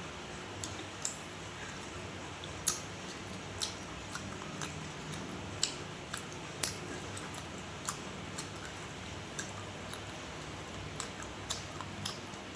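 Close-up eating sounds: wet chewing with irregular sharp mouth smacks and clicks, roughly one a second, over a steady low hum.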